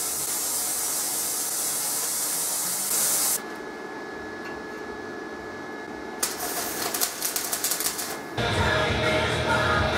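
A loud steady hiss that cuts off suddenly about three seconds in. Then, after a quieter stretch, the crackle of electric arc welding begins about six seconds in and becomes loud and dense near the end.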